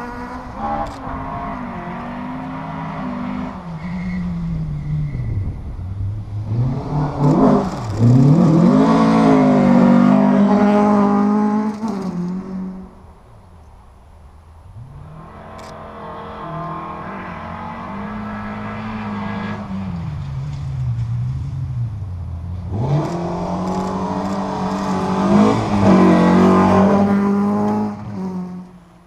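Two rally cars driven hard past the listener one after the other, their engines revving with the pitch dropping and climbing again several times over the run. The first car fades out about halfway through, and the second builds up and passes before the sound falls away near the end.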